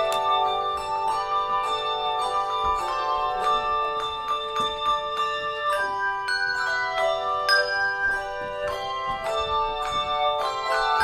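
Handbell choir playing a piece: many bells struck one after another, their clear tones ringing on and overlapping into chords.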